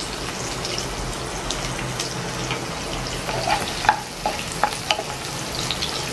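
Chopped onion sizzling in hot oil in a nonstick kadai. From about halfway, a wooden spatula stirs it, with a few short knocks and scrapes against the pan.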